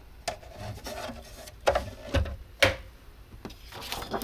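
A thin 3D-printed plastic sheet and a printer's spring-steel print sheet being handled: rubbing and rustling, broken by about five sharp clacks and snaps, the loudest about two and a half seconds in.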